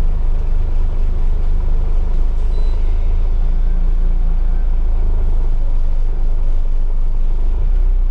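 Scania OmniCity double-decker bus under way, heard from inside the upper deck: a steady low diesel engine drone with road rumble.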